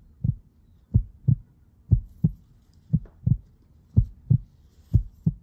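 Heartbeat sound effect: steady double thumps, lub-dub, about one beat a second.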